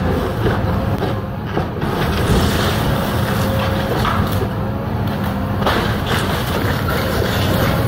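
Caterpillar 318E hydraulic excavator's diesel engine running steadily, with cracks and crunches as its bucket breaks into a house roof: sharp impacts near the start, about a second and a half in, and again near six seconds in.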